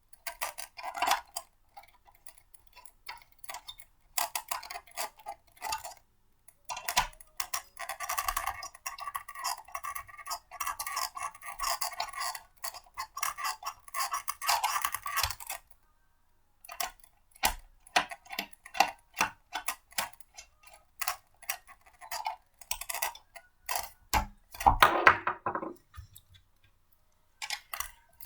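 Blender parts being handled and fitted together: irregular clicks, taps and light clatter, with a denser stretch of rattling for several seconds in the middle.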